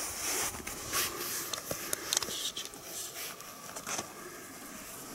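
Soft rustling and scraping with scattered small clicks over a steady hiss.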